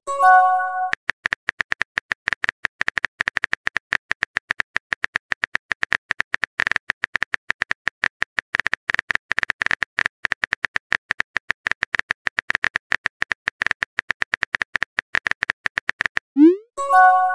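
Rapid, continuous phone-keyboard typing clicks from a texting-story app. A short chime sounds just after the start, and near the end a quick rising swoosh is followed by a second chime, the sound of a message being sent.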